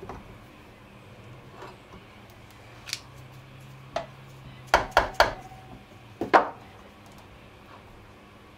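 Sharp metal clicks and clinks as a freshly machined pulley is handled on a DC treadmill motor's shaft: about half a dozen short ticks, three of them in quick succession halfway through.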